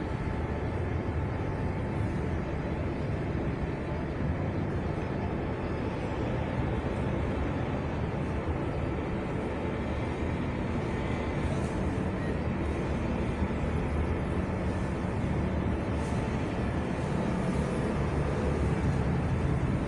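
Steady low outdoor rumble of city background noise, mostly deep and even, with no distinct events.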